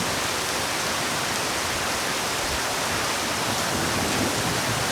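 Steady rush of spraying water, like a hose jet spraying a surface.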